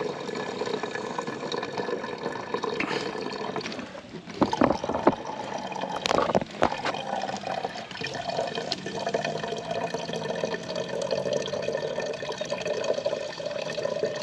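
Filtered water running in a steady stream from a SimPure gravity water filter into a plastic 1-gallon jug, with a few knocks about halfway through.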